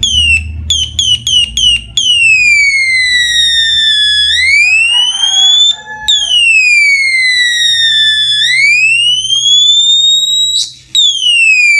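Homemade electronic police-siren circuit, switched by a non-latching alarm's push button, sounding loudly. First come about five short chirps in quick succession, then a wailing tone that slides down and back up over about four seconds, cutting out briefly twice before restarting.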